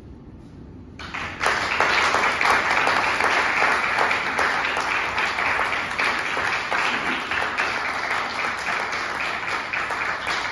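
Audience applauding: after a brief lull the clapping breaks out about a second in, then runs on as a dense patter of many hands and slowly eases off toward the end.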